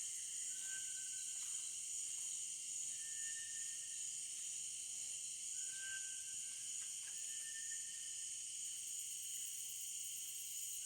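Steady dusk chorus of insects, an even high-pitched trill that never lets up. Over it come four short whistled notes, about two seconds apart, alternating slightly lower and higher.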